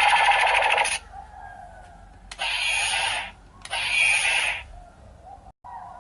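Recorded sound effects played through the small speaker of a CSM Kamen Rider Ryuki transformation toy. A harsh, screechy burst ends about a second in, followed by two shorter bursts, with fainter pitched tones between them.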